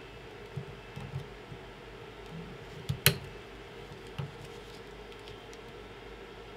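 Small clicks and taps of hands handling a 3D printer's extruder cable harness and plastic parts, with one sharp click about three seconds in, over a steady low hum.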